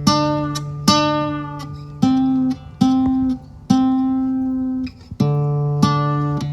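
Acoustic guitar music: plucked notes and chords, a new one about every second, each ringing out and fading.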